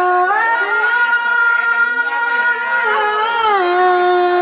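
A woman singing one long, drawn-out phrase in a Tai folk style. She holds a note that steps up in pitch just after the start, wavers about three seconds in, and then sinks to a lower held note.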